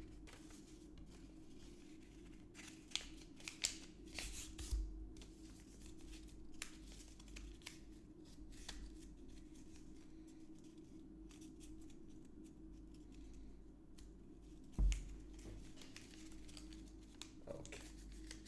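A sheet of paper being folded and creased by hand into a makeshift scoop: scattered soft rustles and crinkles, with one low thump late on.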